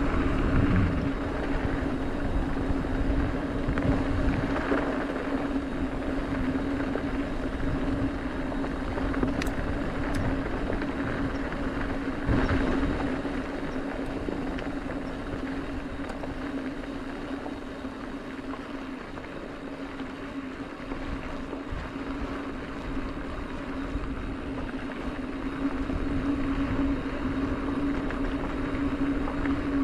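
Mountain bike rolling downhill on a dirt fire road: tyre rolling noise with a steady hum, and a few knocks and rattles over bumps.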